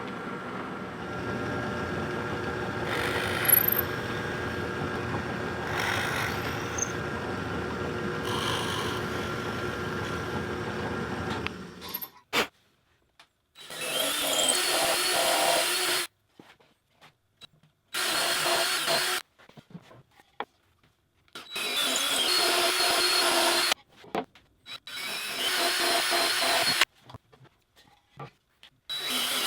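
Power drill boring holes through a drilling jig into wooden drawer fronts. A steady run of about twelve seconds is followed by a series of short bursts of one to two seconds each, with pauses between them.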